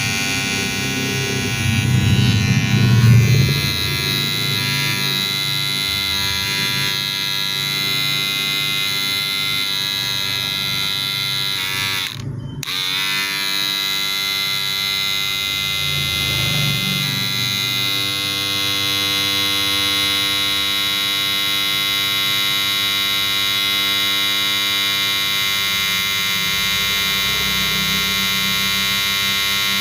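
Wahl cordless hair clipper running with a steady, even buzz. It gets louder and rougher for a moment a couple of seconds in and dips briefly about twelve seconds in.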